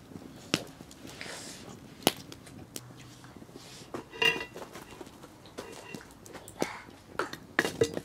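Wood fire crackling with scattered sharp pops and clicks under a steel baking plate, and one short ringing metallic clink about four seconds in.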